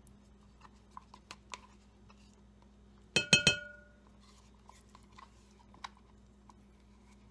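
Kitchen scraper scooping sour cream from a plastic tub into a ceramic mixing bowl: faint scrapes and small clicks, then about three seconds in a quick run of three or four clinks against the bowl that ring briefly.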